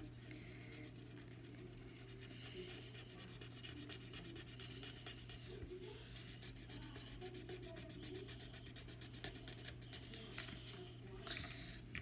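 Colored pencil scribbling on paper: faint, quick back-and-forth strokes as a drawing is shaded in, busiest in the middle stretch.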